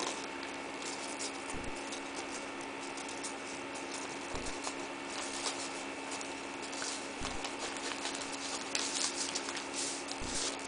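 Paper towel rustling and crinkling faintly in the hands as someone tries to roll it up tightly, in short scattered bursts, over a steady electrical hum.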